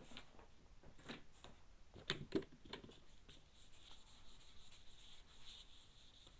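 A marker writing on paper: faint scratching, with a few short knocks and scrapes about two to three seconds in.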